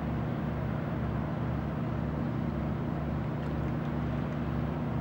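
Steady low engine hum with several fixed low tones over a constant wash of noise, unchanging in level.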